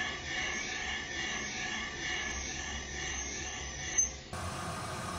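Valve seat cutter turning in a Subaru WRX cylinder head's intake valve seat, making a steady scraping hiss as it blends the seat into the port throat. About four seconds in there is a short click, and the sound gives way abruptly to a different steady background noise.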